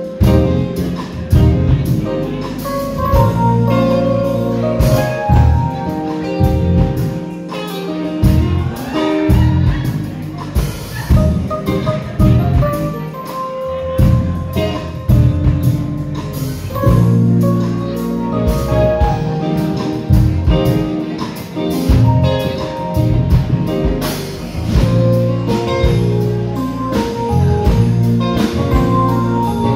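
Live band playing an instrumental passage, with guitar, bass and a drum kit keeping a steady beat.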